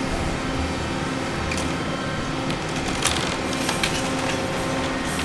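Tracked excavator's diesel engine running steadily while its demolition grapple tears into a building's wooden upper storey, with several sharp cracks of splintering timber, the loudest about three seconds in.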